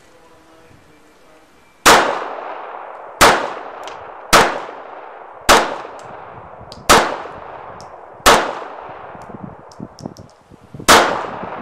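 Seven shots from a Makarov P-64 pistol in 9x18 Makarov, fired about a second and a quarter apart with a longer pause before the last. Each shot rings on in a long echo. The first is fired double action from the decocked pistol. A few faint clinks come just before the last shot.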